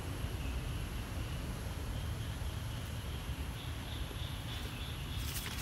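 Outdoor background noise: a steady low rumble on the microphone under a faint, steady high-pitched hum, with a short burst of rustling clicks near the end.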